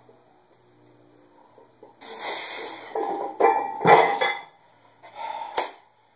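A weight-plate-loaded strongman log dropped to the floor after an overhead press: heavy thuds with a short metallic clang from the plates about three to four seconds in. Hard, breathy exhales from the lifter come before and after the drop, with a single sharp click near the end.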